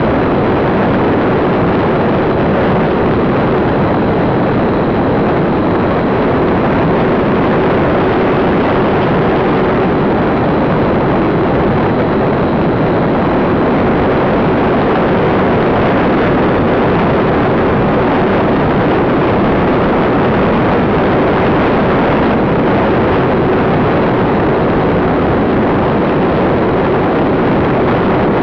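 Radio-controlled model YC-14 plane in flight, heard from a camera on its tail fin: a loud, steady rush of wind over the microphone with an unchanging motor tone under it.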